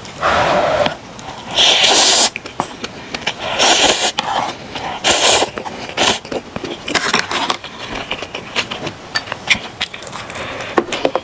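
Ramen noodles slurped up with chopsticks from a container of spicy broth: a series of about six hissy slurps over the first seven seconds or so, then many short wet clicks of chewing.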